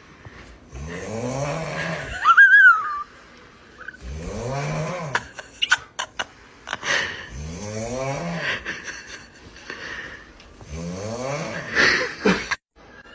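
A sleeper snoring loudly: four long snores about three seconds apart, each a rattling snore whose pitch rises and falls. After the first snore comes a high, wavering whistle, and a few sharp clicks fall near the middle.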